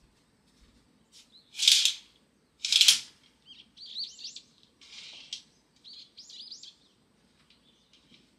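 Small birds chirping: two loud, harsh calls about two and three seconds in, then a run of quick up-and-down chirps.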